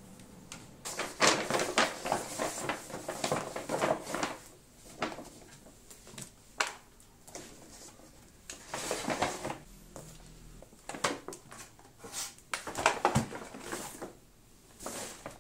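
Irregular clattering and knocking of objects being handled, in several bursts with short pauses between them.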